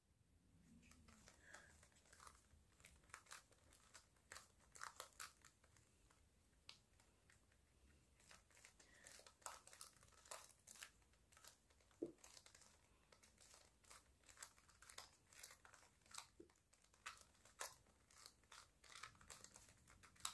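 Faint, irregular clicking and clacking of a plastic 2x2 Pyraminx twisty puzzle as its faces are turned by hand.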